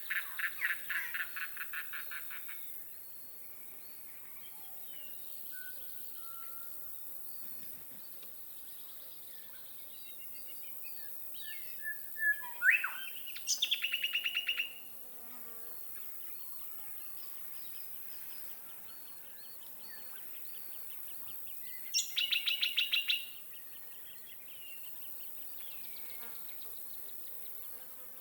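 Birds calling over a faint, steady chirring of insects. A rapid pulsed trill fades out over the first couple of seconds; about twelve seconds in a call sweeps upward and runs into another fast trill; a shorter fast trill comes about twenty-two seconds in.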